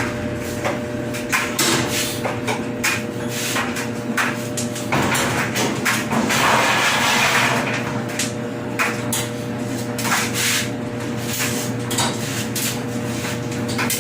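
Irregular knocks and clanks of hand tools and metal parts while a dryer is being taken apart for a belt replacement, with a scraping stretch about midway, over a steady hum.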